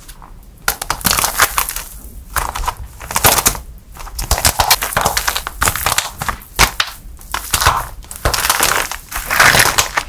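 A hardened plaster clay heart cracking and crumbling under thumb pressure. Starting about a second in, it gives dense, crisp crackling and crunching in repeated bursts as the shell breaks into flakes.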